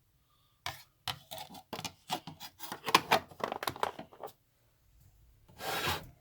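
A rapid, irregular run of clicks and knocks lasting about three and a half seconds, then a short rub near the end: the metal parts and attachments of a Servo 7060 benchtop drill press being handled and adjusted.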